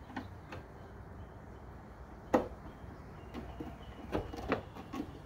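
Scattered small clicks as the top end of a Nissan 370Z's old hatch gas strut is worked off its mount with a flat-blade screwdriver, with one sharper click about two seconds in.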